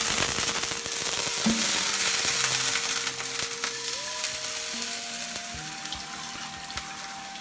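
Water hitting a very hot frying pan and flashing to steam: a loud hiss and sizzle that slowly dies away, with a faint whistling tone that steps up in pitch in the second half.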